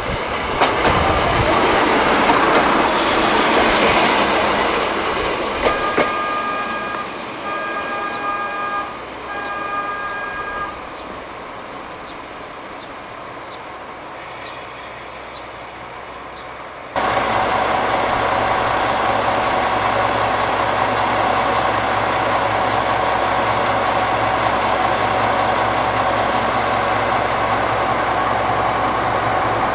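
Diesel railcar of the KTR001 'Tango Explorer' running. Three short, steady pitched tones sound about six to ten seconds in. After an abrupt cut just past halfway, a steady diesel engine hum carries on.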